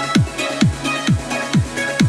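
Electronic dance music with a steady kick drum, a little over two beats a second, over sustained synth chords and crisp hi-hats.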